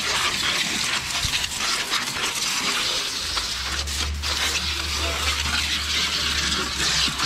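Water from a Turbo Jet garden-hose spray wand spattering over a car's engine bay and hood: a steady hiss of spray and splashing. A low steady hum joins about three seconds in.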